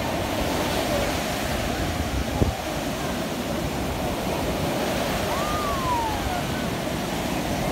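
Surf breaking on a sandy beach: a steady rush of waves. A single sharp knock about two and a half seconds in, and a faint falling tone a little past the middle.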